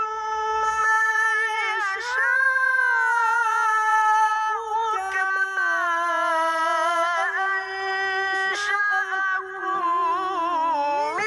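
Young male qari chanting the Quran (tilawah) in the melodic, maqam style: one unaccompanied high voice holds long ornamented notes with slow pitch bends, drawing breath briefly every few seconds.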